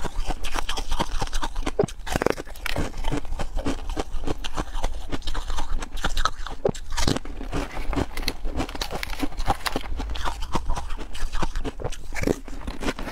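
Close-miked crunching and chewing of frozen white ice pucks, a dense, continuous run of sharp crackles and cracks as the ice is bitten and ground.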